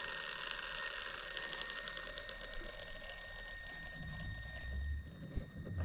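A faint, steady high-pitched whine, with light handling sounds and a short knock about five seconds in.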